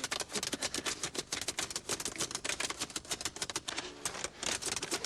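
Fast, irregular clicking, many sharp clicks a second, like keys being struck.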